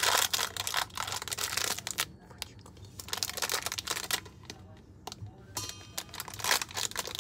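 Rustling and crinkling of material being handled, in quick irregular spurts with short pauses between them, as things are sorted and arranged.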